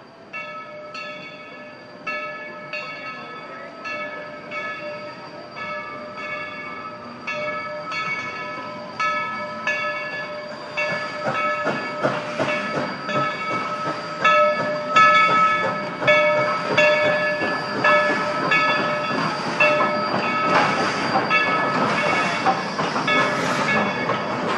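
Coal-fired steam locomotive No. 70 of the Dollywood Express ringing its bell, about one and a half strokes a second, growing louder as it pulls into the depot. From about halfway, a rising rush of steam and running-gear noise builds under the bell.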